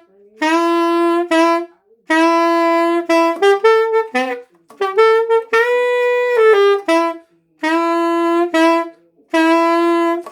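Alto saxophone playing several short jazz phrases that step down through the goal notes G sharp, F sharp, E and C sharp and often settle on a held low note, with brief pauses for breath between phrases.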